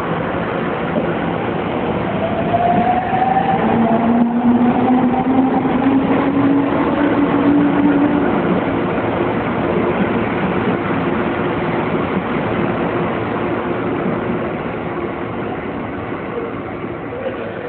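Toei 10-300 series subway train pulling out of the platform. Its electric traction motors whine, rising in pitch as it gathers speed, over the rumble of the cars running on the rails, which then slowly fades as the train draws away.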